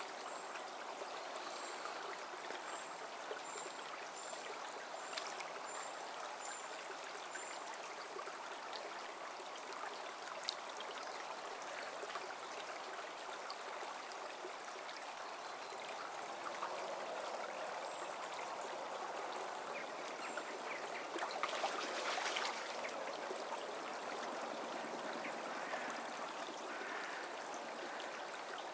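Small shallow stream running over stones, a steady rush of water. It grows briefly louder for about a second, a little past two-thirds of the way through.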